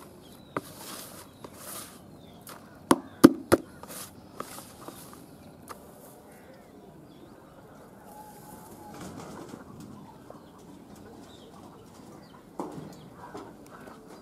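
Poultry yard ambience: chickens and other birds calling faintly, with a few sharp knocks about three seconds in that are the loudest sounds.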